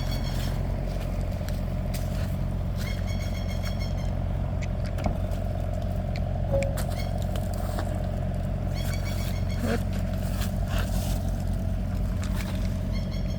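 Excavator engine idling steadily, with scattered light clicks and a few short metallic rattles over it.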